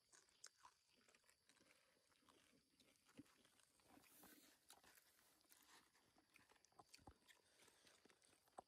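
Faint, scattered crunching and small clicks of people eating crunchy snacks, close to silence.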